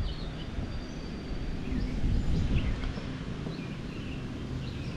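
Outdoor pond ambience: a steady low rumbling noise with a slight swell about two seconds in, and faint scattered bird chirps.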